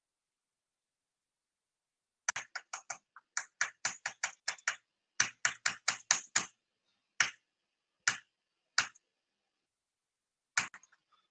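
Computer keys being pressed in a quick run of clicks for about four seconds, then four single clicks spaced further apart, stepping a slide presentation forward.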